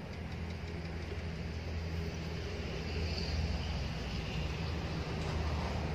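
An engine running steadily, a low droning hum that holds its pitch.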